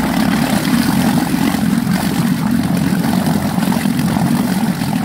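Minn Kota Endura transom-mount electric trolling motor running steadily at raised speed, its propeller churning the water in a trash can: a steady motor hum over sloshing water, the motor loaded by the water's drag.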